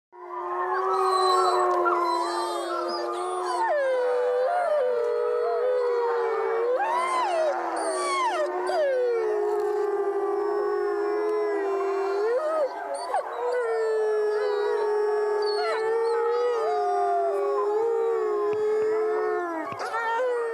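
A pack of wolves howling in chorus: several long, overlapping howls at different pitches, one held low and steady while others swoop up and down above it.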